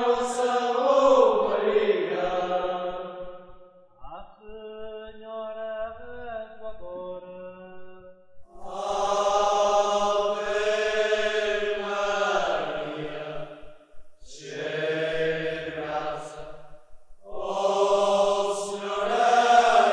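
São Miguel romeiros (Azorean pilgrims) chanting prayers in unison, in long held phrases with short breaks between them. One quieter, thinner phrase comes about four seconds in, and fuller phrases follow.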